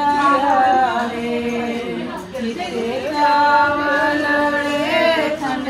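Women singing a devotional satsang song (bhajan) together, with long held notes.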